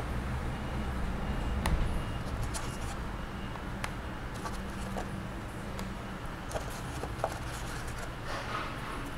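Small magnetic game tokens clicking softly as they are set down one by one on a magnetic board, a handful of separate clicks over a steady low hum.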